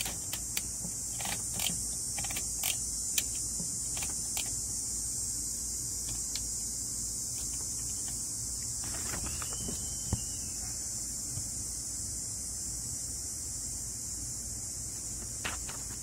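1960 Olympia SM-4 manual typewriter's carriage return lever and line-spacing mechanism being worked, giving a run of sharp ratchet clicks in the first few seconds, then a single click about ten seconds in and another near the end. A steady high insect chorus runs underneath.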